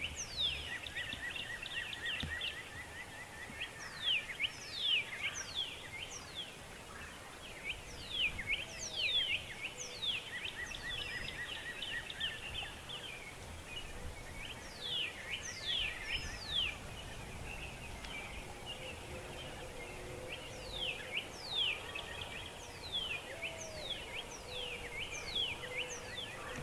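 Songbirds singing: sharp down-slurred whistles repeated in small groups throughout, with a fast trill near the start and again at the end, over a steady background hiss.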